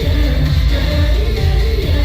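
Live pop music played loud through a concert sound system, with a heavy bass beat and a sung vocal line.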